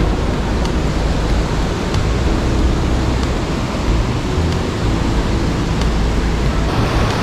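Steady rushing of white water pouring over a small waterfall and cascade, loud and unbroken.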